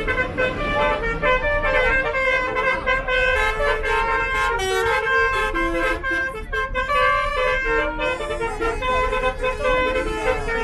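Bus basuri horn playing a melody of short held notes that step up and down in pitch, over a steady low rumble.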